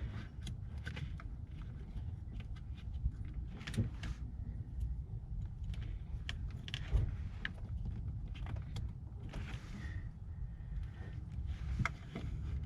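Scattered small clicks, taps and scrapes of hands fumbling with an O2 sensor's wiring plug and nearby plastic parts in a cramped engine bay, over a steady low rumble.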